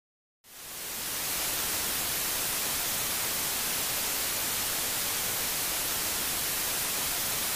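Television static hiss: a steady, even rush of noise that fades in about half a second in and then holds level.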